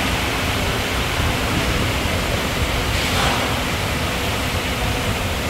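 Steady, even rushing noise of a workshop background, with a brief faint swish about three seconds in.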